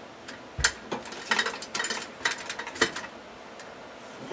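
Clicks, taps and light rattles from handling the wire leads and housing of an under-cabinet LED strip light, with a sharper knock about half a second in and another near three seconds in.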